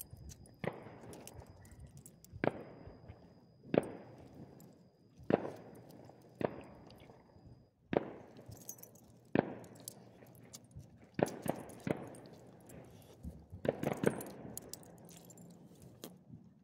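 Fireworks going off, about a dozen sharp bangs at irregular intervals of one to two seconds, each with a short echoing tail.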